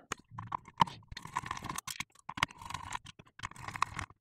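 Hands working the aluminium LED board loose from the metal floodlight housing: a run of irregular small clicks, taps and scrapes.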